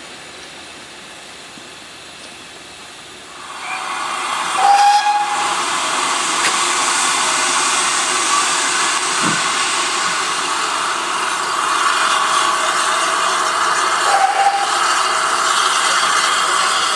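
Steam locomotive venting steam: a loud, steady hiss that starts about three and a half seconds in and keeps on, with two short whistle-like tones, one soon after it starts and one near the end.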